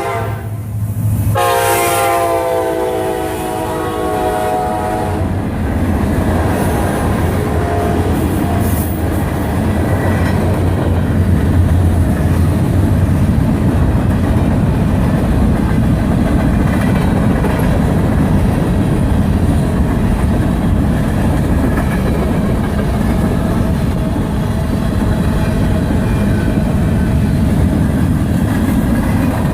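Horn of a Kansas City Southern EMD SD70ACe freight locomotive sounding a held multi-note chord, broken briefly about a second in and ending about five seconds in. After that comes the steady rumble and clickety-clack of the freight train rolling past on the rails.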